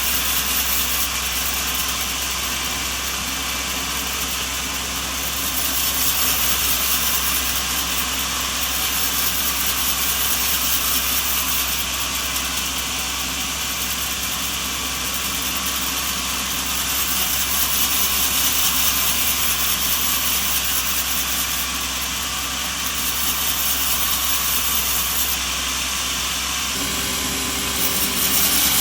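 Steady machinery noise with a strong hiss, swelling and easing slowly every few seconds.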